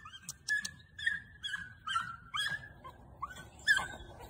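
A dog whining in a quick series of short, high whimpers, about two or three a second, each dropping in pitch; the one near the end is loudest.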